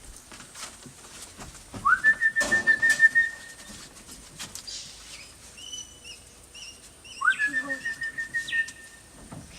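A long trilling whistle is sounded twice to call parrots, each time swooping up quickly and then held on one warbling pitch. A few short high chirps come between the two whistles.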